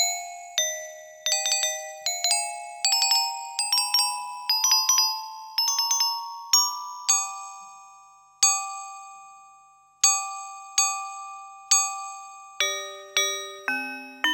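Casio AiX keyboard's chromatic-percussion preset with a bright, bell-like mallet sound, played as struck notes that each ring and fade. It starts as a quick run of notes climbing in pitch, then a few single notes are left to ring out, and lower notes come in near the end.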